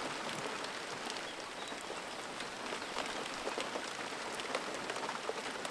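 Steady rain falling, with many small drops ticking on a surface close by.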